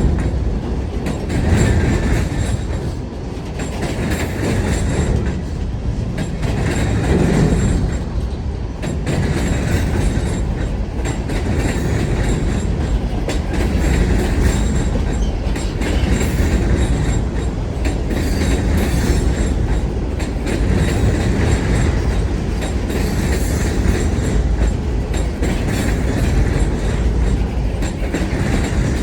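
Wheeling & Lake Erie freight train cars rolling past, a steady loud rumble of steel wheels on the rails.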